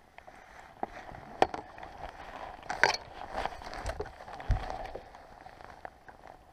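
Knocks, clicks and rattles of handling in a fishing boat as a hooked whitefish is netted and lifted aboard, with a sharp knock about a second and a half in, a louder one near three seconds and a dull thump a little later.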